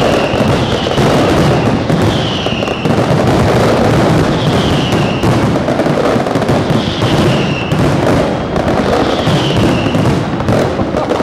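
Night fireworks display in a dense, continuous barrage: rapid bangs and crackling with no pause, and a short falling whistle recurring about every two and a half seconds.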